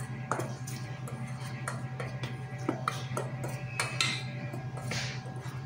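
Metal spoon stirring dry flour and cornstarch in a stainless steel mixing bowl: irregular light clinks and scrapes against the bowl. A steady low hum runs underneath.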